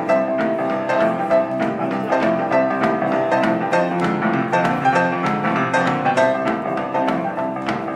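Upright piano played solo, its front panel off and the hammers exposed: a quick, rhythmic piece of closely spaced notes and chords over a moving bass line.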